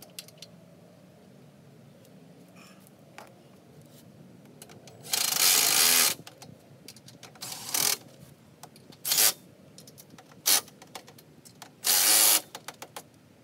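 Handheld power tool run in five short bursts, the longest about a second, the rest briefer, each stopping abruptly.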